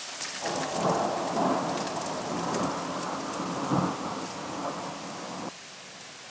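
Thunder rumbling over a steady hiss of rain. The rumble comes in about half a second in, swells several times and cuts off abruptly near the end.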